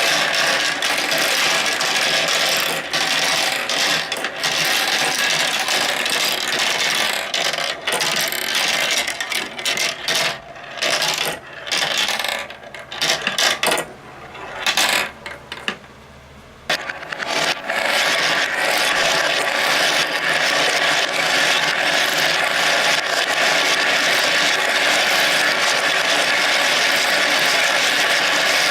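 Balls rolling and clattering down the plastic tracks of a Kumikumi Slope marble run toy, many at once in a dense continuous rattle. Partway through it thins to scattered clicks and briefly almost stops, then picks up again into a steady run.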